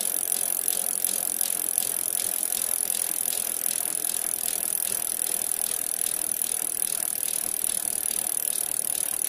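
A steady, rapid mechanical ticking rattle over a hiss.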